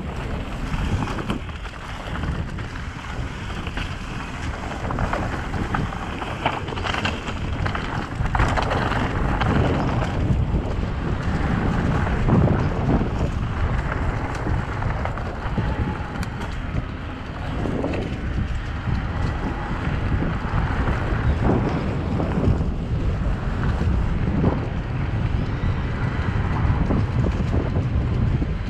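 Wind noise on the microphone of a mountain bike descending a dirt singletrack, over the steady rumble of the tyres rolling on the dirt, with scattered small knocks from the bike over the ground.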